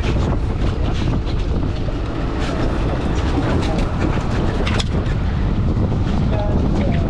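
Steady wind buffeting the microphone over the running noise of a boat on the water, with scattered clicks and knocks of fishing gear and a landing net being handled on deck.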